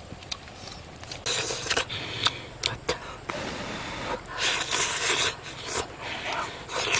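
A man eating cooked fish close to the microphone: breathy puffs of blowing on the hot flesh, then wet mouth clicks and smacks as he bites and chews it.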